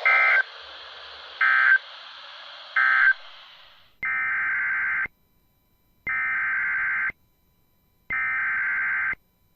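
Emergency Alert System data tones: three short buzzing end-of-message bursts over radio static, then, after the static fades, three one-second buzzing SAME header bursts that open the next alert.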